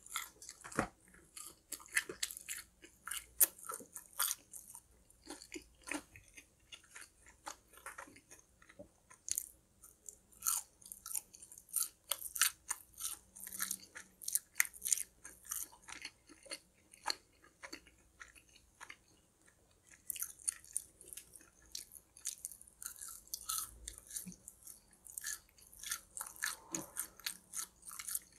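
Close-up eating sounds: crisp fried food bitten and chewed, with many sharp crunches and a short lull about two-thirds of the way through.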